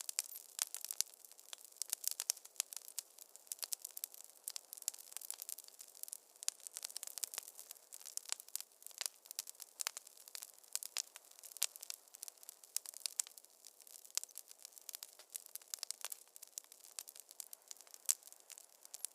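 Wood fire crackling in a fireplace: dense, irregular pops and snaps, with no low rumble beneath them.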